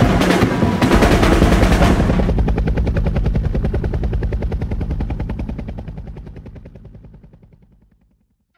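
Helicopter rotor chop: loud and dense for the first couple of seconds, then a fast, even pulsing that fades away to nothing near the end.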